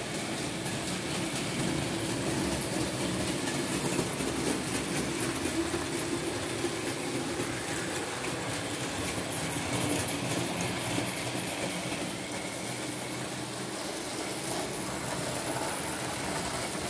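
Märklin H0 model trains running on the layout's track: a steady rumble of wheels and motors with fine rapid clicking over the rails.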